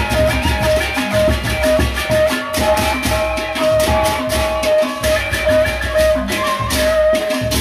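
Sasak gendang beleq ensemble from Lombok playing: large barrel drums beaten, clashing hand cymbals, and a gamelan melody with one ringing note struck again and again.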